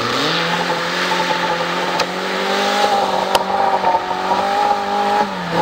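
Rally car engine revving up in the first half-second, then held at high, steady revs as the car drives flat out on loose gravel, with the hiss of the tyres throwing gravel. Two sharp clicks come in the middle, and the revs dip briefly near the end.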